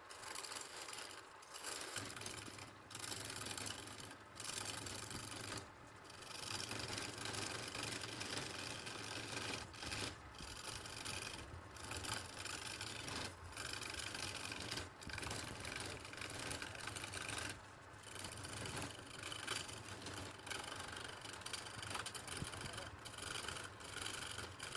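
Wood lathe running, with a turning tool cutting the spinning wood: a steady scraping hiss over a low motor hum, broken by short pauses every second or two.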